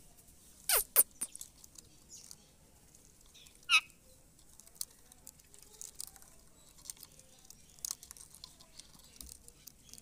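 Rose-ringed (Indian ringneck) parakeet making a few short, sharp sounds: a quick cluster about a second in, one more near four seconds, and faint scattered ticks in between.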